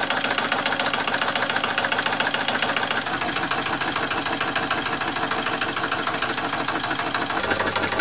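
Bing toy single-cylinder horizontal steam engine running steadily on compressed air instead of steam, giving a rapid, even patter of exhaust beats. A low steady hum joins near the end.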